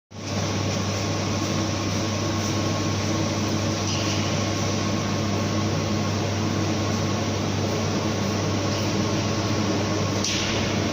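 CNC plasma cutting machine running: a steady hiss with a low electrical hum underneath.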